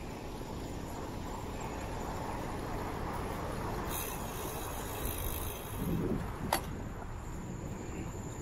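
Steady low rumble of road and wind noise from riding a bicycle through city traffic, with one sharp click about six and a half seconds in.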